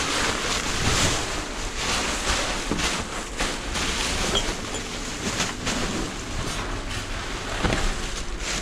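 Continuous rustling and crinkling of plastic trash bags and loose rubbish being rummaged through by hand, with scattered small knocks and clicks.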